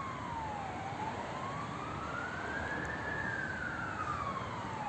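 Emergency vehicle siren wailing: one slow tone that falls, rises and falls again, each sweep lasting about two seconds.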